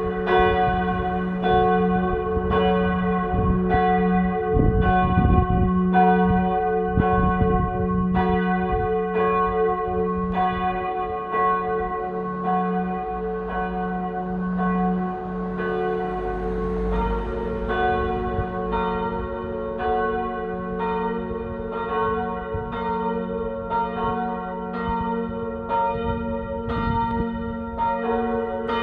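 Church bells pealing: several bells struck over and over in a steady, overlapping rhythm, with the tones ringing on between strokes. About halfway through, another bell's lower tone joins in. This is the church's six o'clock evening ringing.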